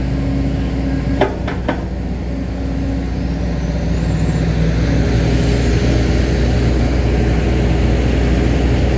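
Excavator's diesel engine running steadily, with a few sharp metal knocks about a second in. The engine grows louder from about halfway through, as it works under load.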